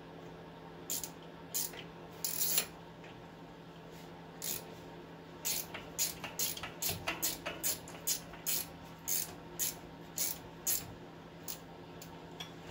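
Hand ratchet turning a bolt on the front steering knuckle, a short burst of clicks on each back stroke. The strokes are scattered at first, then come steadily about twice a second through the second half.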